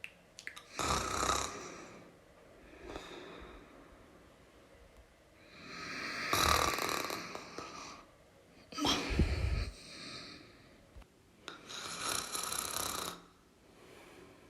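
A person snoring: four loud breaths come at uneven intervals of a few seconds, with fainter breaths between them.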